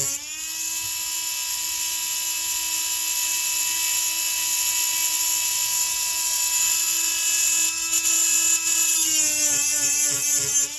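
High-speed rotary grinding tool running with a steady high whine while it ports a chainsaw piston. Its pitch climbs back up at the start as the load comes off. Near the end it drops and wavers as the bit is worked back and forth against the metal.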